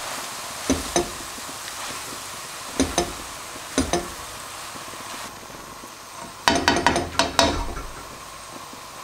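Rice, chicken and green beans frying in a wok with a steady sizzle while they are stirred with a spatula; the spatula scrapes and knocks against the pan in pairs of strokes, then in a quicker run of strokes about six and a half seconds in.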